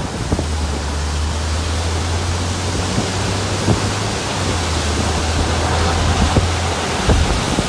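Steady rushing noise of strong wind, with a low steady hum beneath it and a few faint knocks.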